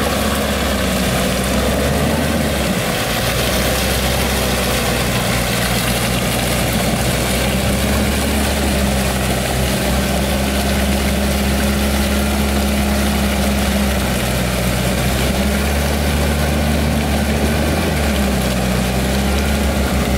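Four-wheel-drive engines running steadily while a bumper-mounted winch hauls a bogged Nissan GU Patrol out of the mud.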